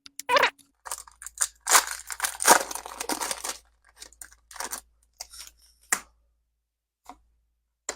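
Foil Pokémon booster pack wrapper being torn open and crinkled, with trading cards handled and slid against each other: a longer tearing rustle about two seconds in, then scattered short rustles and clicks.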